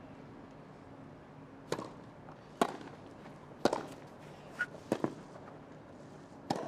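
Tennis rally: a tennis ball struck back and forth by racquets, sharp pops about a second apart, with a quiet crowd hush in between.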